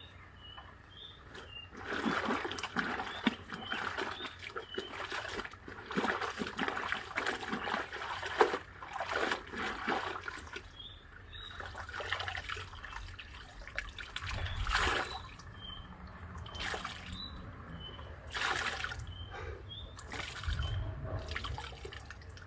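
Water splashing and trickling in a basin as a white cloth is rinsed by hand in clean water, then lifted out and wrung, water running and dripping back into the basin in irregular bursts.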